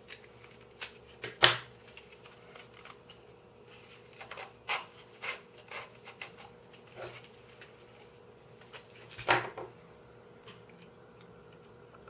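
Scattered light clicks and knocks of 3D-printed puzzle pieces and a screwdriver being handled, the loudest knocks about a second and a half in and about nine seconds in.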